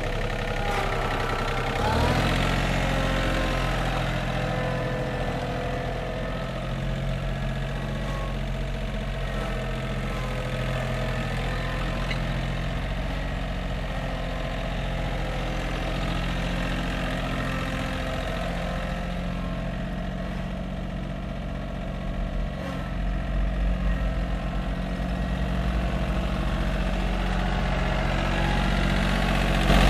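John Deere 4200 compact tractor's diesel engine running as the tractor is driven about on pavement, its revs climbing about two seconds in and then holding steady. The engine gets a little louder and deeper near the end as the tractor comes back close.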